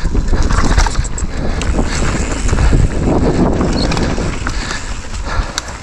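Downhill mountain bike running over a rough dirt and rock trail, with tyre noise, the bike rattling over bumps and wind buffeting the microphone. The noise eases off near the end as the bike slows.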